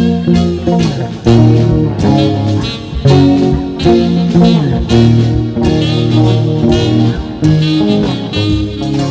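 Squier Telecaster Thinline electric guitar playing a line of notes along with a jazzy backing track that has a bass line.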